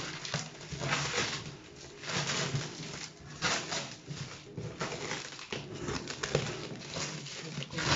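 Packaging being handled during unboxing: irregular bursts of rustling and crinkling, several times a second, as cardboard and plastic wrapping are pulled and moved.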